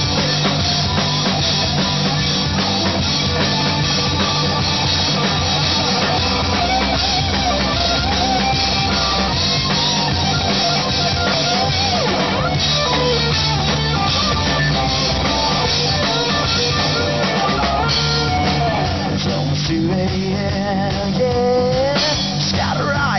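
Live rock band playing: a drum kit with electric guitars over it, loud and steady without a break.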